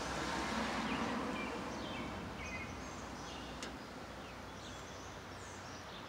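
Short, scattered bird chirps over a steady background of outdoor noise, which is louder in the first second or so and then eases. A single sharp click comes about three and a half seconds in.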